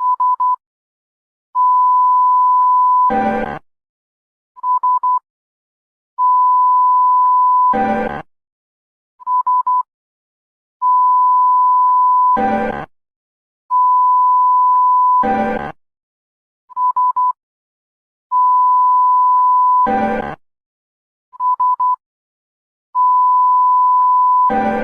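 Synthesized emergency alert system alarm: a steady high beep tone held about a second and a half, cut off by a short harsh buzz, then three quick beeps. The cycle repeats about every four to five seconds.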